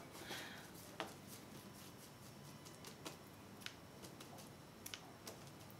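Faint scraping of a paintbrush mixing thick acrylic paint on a paper palette, with a few small clicks of the brush against the palette.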